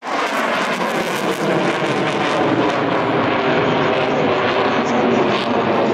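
Jet noise from an F-16 fighter in flight: a loud, steady rushing sound.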